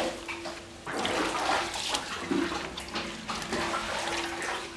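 Hands scooping wet Gouda curds in the vat and packing them into a cheese mould, making irregular wet splashes and squelches of curd and whey.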